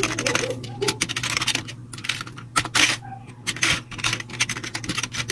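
Fast typing on a budget backlit mechanical keyboard: an irregular run of several key clicks a second, with the keycaps clacking as they bottom out.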